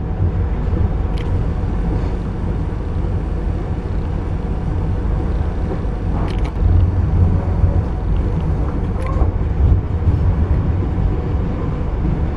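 Steady low rumble of a passenger train, heard from inside the carriage, with a few faint clicks and knocks.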